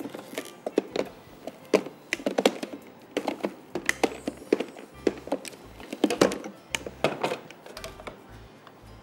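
Plastic clicks and knocks from a stopped food processor being handled, its clear plastic lid and bowl twisted and lifted off the motor base, in a string of irregular taps.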